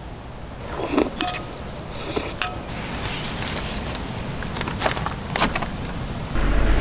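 Light metallic clinks and clicks of handled camp utensils and cookware, with short ringing clinks about a second in and a little after two seconds, and a run of sharp clicks later. Near the end a steady low hum comes in suddenly and stays.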